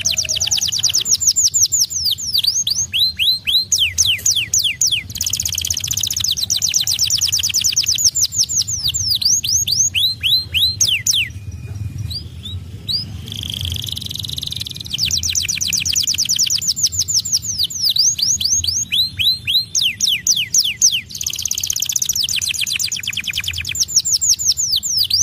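All-white domestic canary singing: long rolling phrases of rapid trills made of fast, downward-sweeping high notes, with a short break about halfway through.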